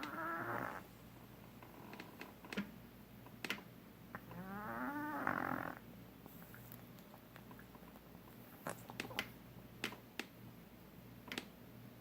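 A sleeping pet snoring: two long snores, one right at the start and one about four seconds in, each rising in pitch as it goes, with a few faint clicks in between.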